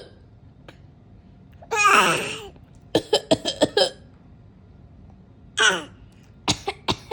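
A woman gives short runs of quick coughs, five or six at a time, twice. Between them a baby lets out a high squealing laugh that slides down in pitch, delighted by the coughing.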